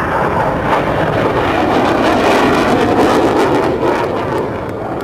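General Dynamics F-111's twin afterburning turbofans roaring on afterburner during a fuel dump-and-burn as the jet makes a low pass. The roar swells to its loudest about halfway through, then begins to fade.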